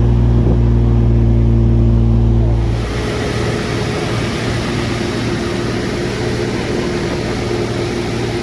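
Car running with a steady low engine hum; about three seconds in it gives way to a broad rushing noise, with the hum still underneath.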